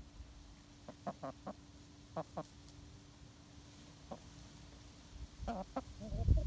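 Chickens clucking in short, soft calls: a few about a second in, a pair around two seconds, one near four seconds, and a quicker run of clucks near the end.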